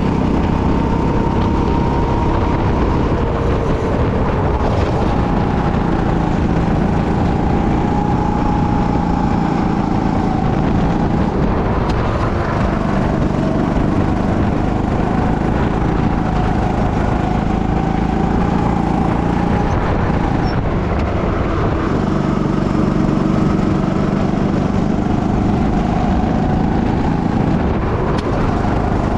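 Go-kart engine running hard under load, heard up close from the driver's seat, its pitch drifting up and down with the throttle through the corners.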